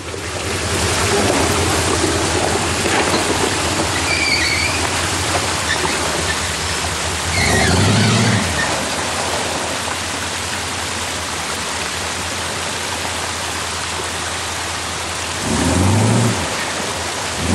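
Hummer H1 driving off-road: a steady rushing noise over a low engine hum. The engine revs up briefly twice, about eight seconds in and near the end.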